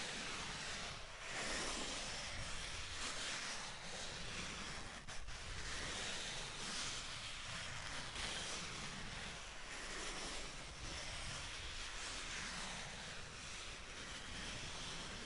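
Styrofoam being rubbed and handled: a continuous scratchy, hissing rustle that swells and eases without a break.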